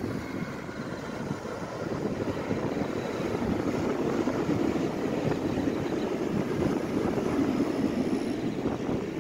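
Electric commuter train running past on an embankment: a steady rumble that swells in the middle and eases toward the end, with a faint high whine over it. Wind buffets the microphone throughout.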